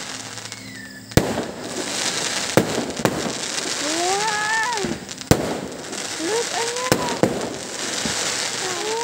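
Aerial fireworks display: about half a dozen sharp bangs of shells bursting, loudest about a second in and again near five seconds, over continuous crackling.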